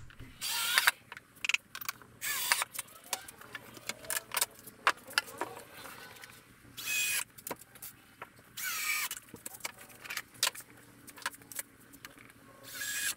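Plywood cabinet panels handled and fitted together on a workbench: several short squealing scrapes of wood against wood and the bench, with scattered knocks and clicks between them.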